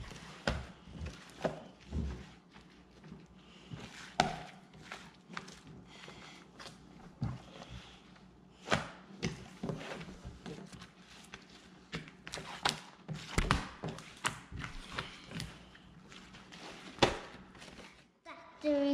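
Pink crunchy slime being squished, pressed and pulled by hand on a wooden tabletop, giving many small irregular pops and clicks.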